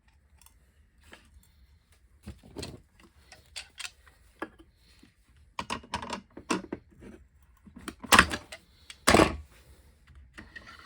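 Irregular metal clicks and clanks of a circular saw and hand tools being handled as a new blade is fitted and bolted on, with two louder knocks about 8 and 9 seconds in.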